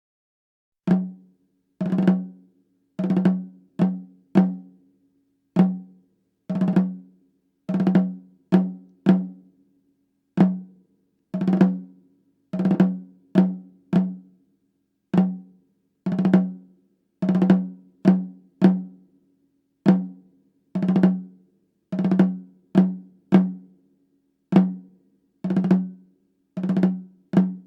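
Snare drum struck in a loose repeating pattern of single hits and quick runs of two to four strokes, about thirty hits in all, each with a short ringing drum tone.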